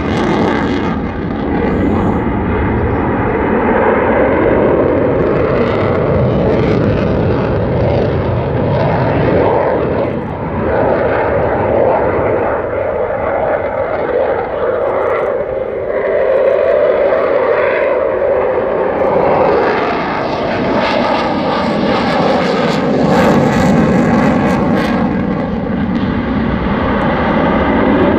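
A Sukhoi Su-27's twin AL-31F afterburning turbofan engines, heard during a flying display: a loud, continuous jet roar whose tone shifts several times as the fighter manoeuvres.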